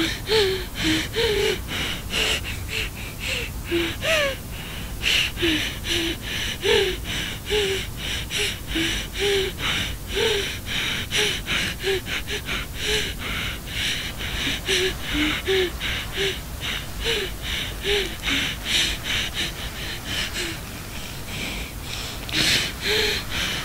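A person breathing hard and fast, short gasping breaths about two or three a second, some with a small voiced catch, and a louder gasp near the end.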